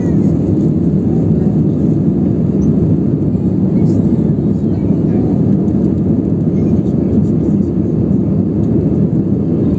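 Steady jet engine and airflow noise inside the cabin of an Airbus A320 climbing after take-off: a constant low rumble without a break.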